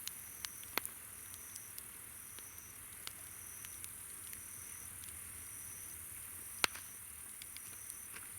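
Campfire crackling with scattered sharp pops, the loudest about six and a half seconds in. Under it, insects call: a steady high trill and a second insect chirping in short, even phrases about once a second.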